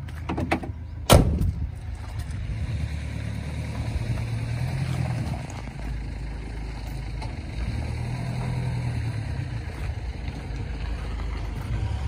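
A truck's cab door shut with a single loud bang about a second in, after a couple of lighter clicks, followed by a steady low rumble.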